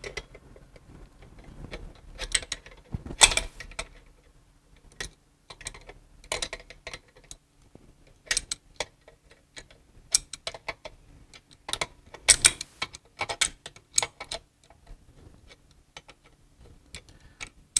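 Hand wrench tightening the nuts on a valve actuator's mounting clamp: irregular metallic clicks and ticks, with a few louder knocks.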